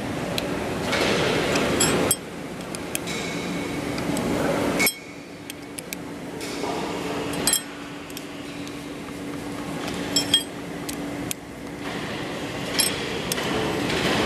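Scattered light metallic clinks and taps of a small steel tool against a steel hydraulic chuck, over a steady low hum.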